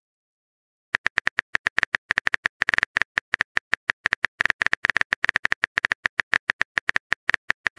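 Phone keyboard typing sound effect: a rapid, even run of short clicks, one per typed letter, starting about a second in.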